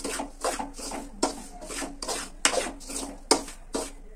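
A steel spoon scrapes and stirs dry semolina around an aluminium kadai in quick repeated strokes, a few a second, with a few sharper clacks of the spoon against the pan. The rava is being dry-roasted on a low flame.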